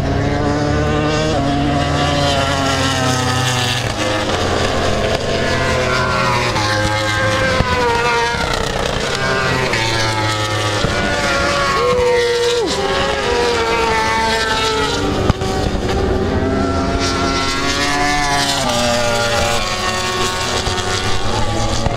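Racing motorcycles running past on the circuit, several engines at once, their pitch climbing and falling again and again as they rev through the gears. About halfway one engine holds a high note, then drops sharply as it comes off the throttle.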